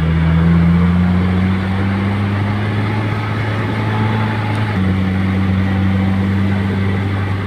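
A motor vehicle's engine running steadily under way, its pitch creeping slowly upward, then settling a little lower about two-thirds of the way through.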